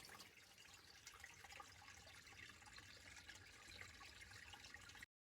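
Faint trickling water with small drips.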